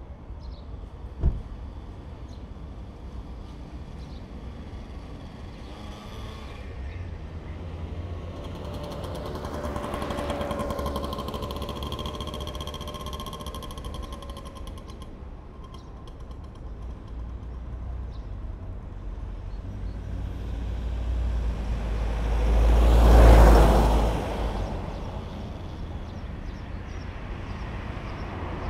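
Street traffic ambience: a steady low rumble with vehicles passing, one carrying a whine about ten seconds in and a louder one passing about three-quarters of the way through. A single sharp knock sounds about a second in.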